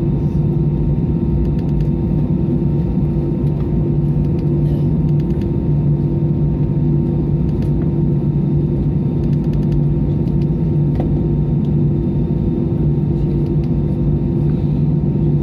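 Airbus A320 cabin noise heard from an economy window seat: a steady drone of the jet engines and airflow, with a constant low hum of a couple of fixed pitches under it.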